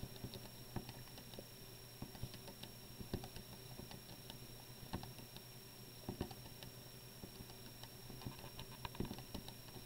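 Keys of a Texas Instruments TI-83 Plus graphing calculator pressed in quick succession as numbers are typed in: a string of faint, irregular clicks.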